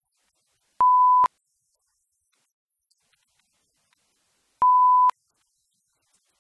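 Two short electronic beeps of one steady pure tone, each about half a second long, nearly four seconds apart, with near silence between them.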